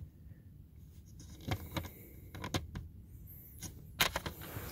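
Small plastic LEGO minifigure pieces clicking and tapping against a LEGO baseplate as a hand picks them up and handles them: a handful of scattered short clicks, the sharpest about four seconds in.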